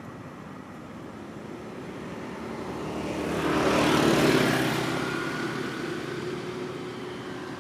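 A motor vehicle driving past on the road, its engine and tyre noise swelling to a peak about four seconds in, then fading away.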